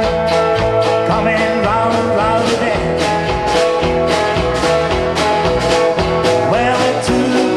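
Live rock and roll band playing, with acoustic and electric guitars over a steady drum beat.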